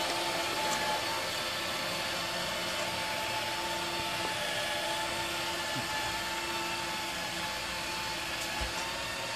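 Small electric motor of a prototype lifting machine running steadily: a constant whine over an even hiss, with no change in pitch.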